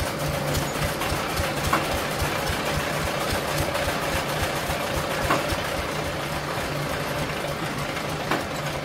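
Motor-driven chaff cutter (fodder chopper) running steadily, its electric motor humming and the flywheel and blades making a rapid, regular mechanical chatter.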